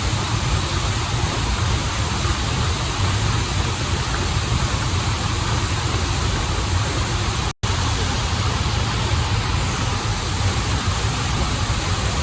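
Waterfall water rushing in a steady, full noise with a deep low rumble. It cuts out completely for a split second about two-thirds of the way through, then resumes unchanged.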